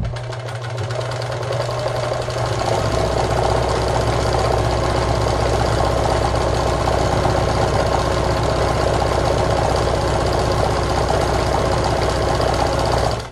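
Meister Class 76 electric sewing machine sewing a triple-step (multi-point) zigzag stitch. It picks up speed over the first couple of seconds, runs steadily at speed, and stops shortly before the end. The microphone is right on top of the machine, so the motor and needle mechanism sound loud.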